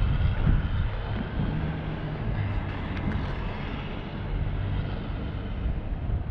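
Low rumble of a vehicle on a snowy city street, loudest at the start and easing off after about a second, with wind buffeting the microphone.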